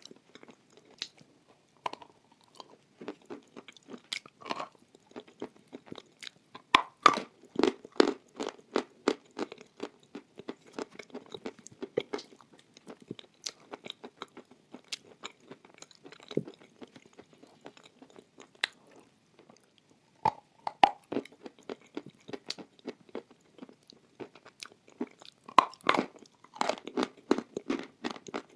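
Close-miked chewing of a mouthful of white chalk paste, with irregular wet crunches and crackles that come thick and fast twice, in the middle and near the end.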